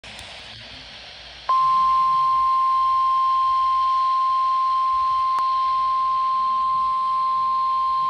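Midland NOAA weather radio sounding the steady 1050 Hz warning alarm tone that heads an emergency alert broadcast, here for a special marine warning. The single pure tone switches on suddenly about a second and a half in, after faint hiss, and holds unbroken.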